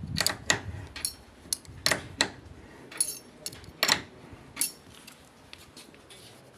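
Hard objects clinking and clicking irregularly, about a dozen sharp knocks with a brief ring, thinning out over the last couple of seconds.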